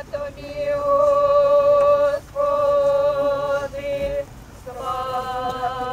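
A man singing a slow chant in long held notes, with short breaks between phrases.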